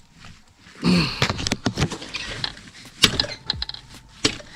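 Metal clinks and knocks of a socket wrench and steel clutch parts as the clutch basket nut of an IZh Jupiter 5 engine is tightened, with a brief falling tone about a second in.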